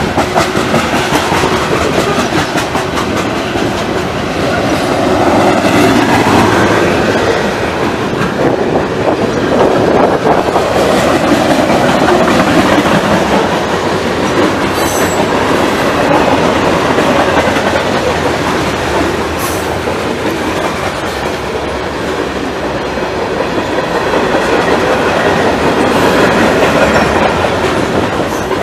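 Freight train of tank cars and covered hopper cars rolling past close by, its wheels clacking steadily over the rail joints over a continuous rumble, swelling and easing slightly as the cars go by.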